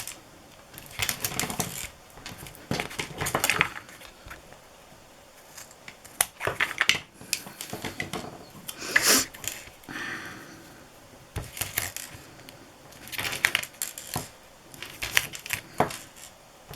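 Double-sided tape being pulled off its roll and pressed onto a strip of card, in a series of short crackling, rustling bursts.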